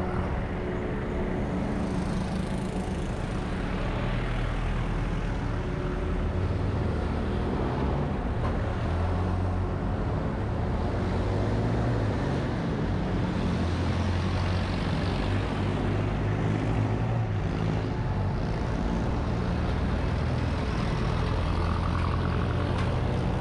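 Street traffic: motor vehicle engines running with a low steady hum, the noise swelling and fading several times as vehicles pass.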